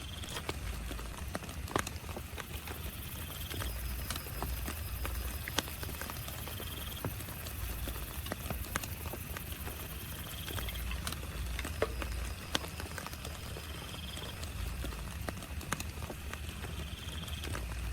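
Raindrops pattering and tapping irregularly on a tent, over a steady hiss and a low rumble. A short high call repeats about every three and a half seconds.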